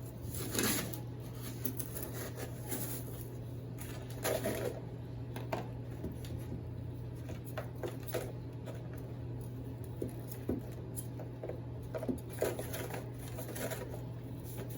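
Scattered soft rustles and scrapes of potting soil and cardboard being handled, scooped and dropped into a plant pot, over a steady low hum.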